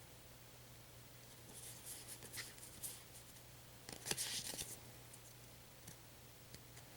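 Faint rustling and soft clicks of trading cards being handled, in short bursts about one and a half to three seconds in and again around four seconds in, over a faint steady hum.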